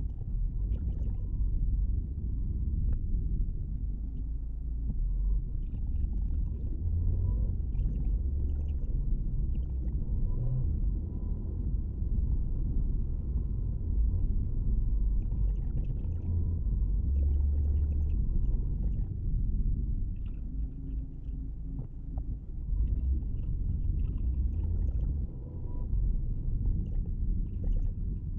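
Low, steady road and engine rumble of a car driving along, heard inside the cabin, swelling and easing slightly, with faint scattered ticks.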